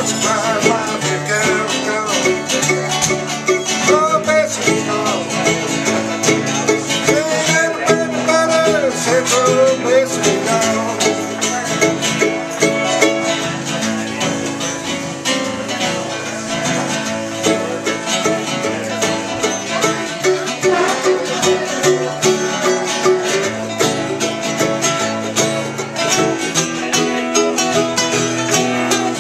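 Bluegrass music with fast picked banjo and guitar, playing steadily throughout.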